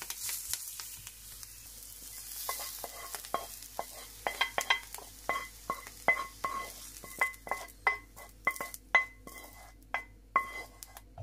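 Stir-fried cabbage sizzling in a pan, dying down over the first couple of seconds. Then a metal utensil knocks and scrapes against the pan about twenty times, each knock ringing briefly, as the cooked cabbage is scooped out.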